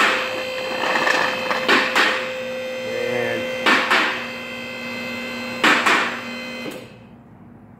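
A steady electrical hum with three pairs of sharp knocks and clanks, about two seconds apart. Near the end the hum and the higher sounds drop away, leaving only a faint low noise.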